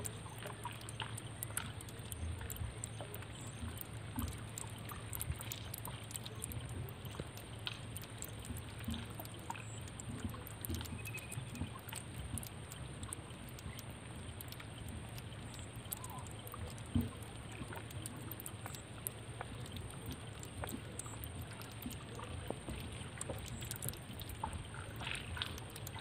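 Faint outdoor ambience: a steady low hum under a scatter of small clicks and ticks, with a thin, steady high-pitched tone. One louder tick comes about two-thirds of the way through.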